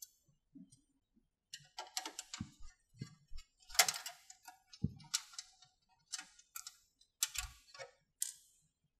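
Irregular light metallic clicks and ticks of a screwdriver turning out the screws of a printer's sheet-metal EIO port cover plate, with the plate coming loose as it is unscrewed.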